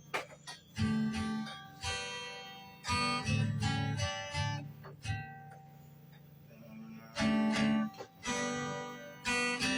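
Acoustic guitar strummed in chords. About five seconds in, a chord is left to ring and die away for a couple of seconds before the strumming starts again.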